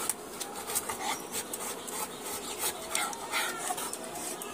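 Labrador panting and moving about on wet concrete, with irregular scrapes and taps of its claws.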